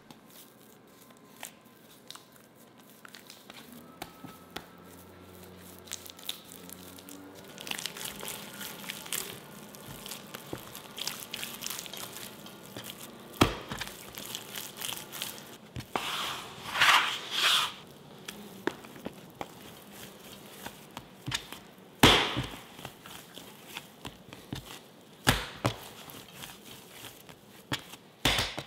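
Hands kneading a sticky, butter-rich bread dough on a bamboo cutting board: wet tearing and squishing as the dough is stretched and pulled apart, with a few sharp knocks as it hits the board. This is the stage where the butter is worked in and the dough's gluten is rebuilt.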